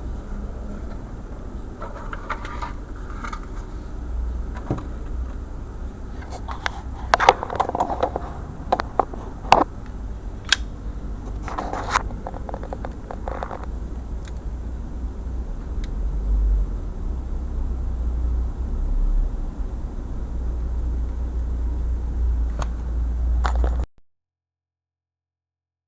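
A low steady rumble with scraping, rustling and sharp clicks from about two seconds in to about fourteen seconds in. The sound cuts off suddenly shortly before the end.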